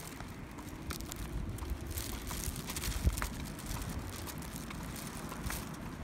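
Thin plastic shopping bag rustling and crinkling in short scattered bursts as it is carried while walking, over a low steady rumble on the phone microphone.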